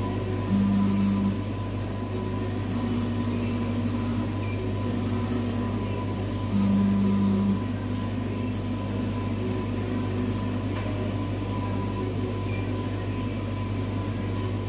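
Steady low electrical hum with the Cornley K-Lite 3 electrolyte analyzer's pump motor running in short spells, the loudest about half a second in and again about six and a half seconds in, each lasting about a second, plus two faint ticks.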